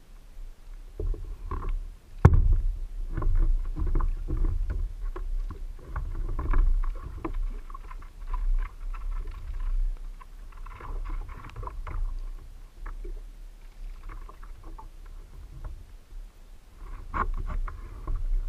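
Knocks, bumps and low rumbling carried through a plastic fishing kayak's hull to the bow-mounted camera, with scattered clusters of small clicks as the angler handles the fishing rod and reel. A sharp knock about two seconds in is the loudest sound.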